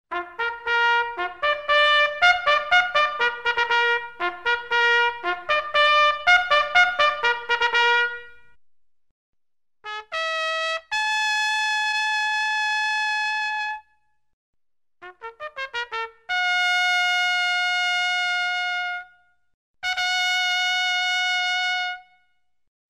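Solo trumpet playing. It starts with a fast run of short notes lasting about eight seconds. After a brief pause come two short notes and a long held note, then a quick flurry of notes leading into another long held note. A final held note comes near the end.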